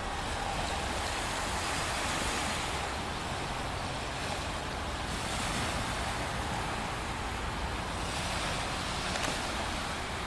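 Steady rushing noise of wind and gentle surf on the seashore, with a low rumble, swelling and easing every few seconds.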